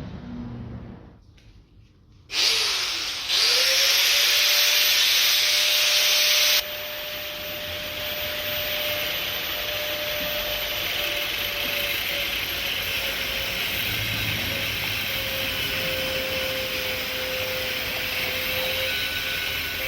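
A power tool's motor starts about two seconds in and runs steadily with a whine. Loud hissing comes with it for the first few seconds, then it goes on more quietly.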